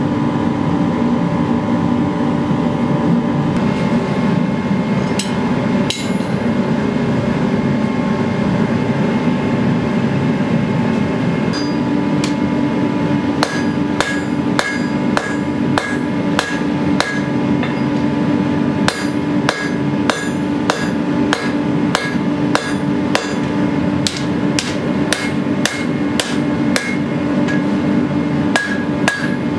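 Hammer blows on hot pattern-welded steel against an anvil. At first a few strikes, then from about midway a run of roughly two blows a second, each with a short metallic ring, over a steady loud hum.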